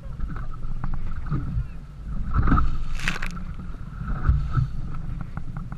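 Small boat rocking on choppy open water: wind on the microphone and waves splashing against the hull, with two louder splashes about two and a half and three seconds in.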